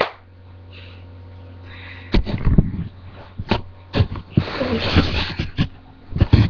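Webcam handled close to its microphone: a click at the start, then from about two seconds in a run of knocks and bumps with rustling in between.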